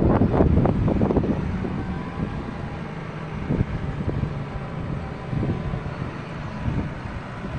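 John Deere 6215R tractor's six-cylinder diesel engine running under load as it works a six-furrow reversible plough. Louder for the first second or so, then easing off.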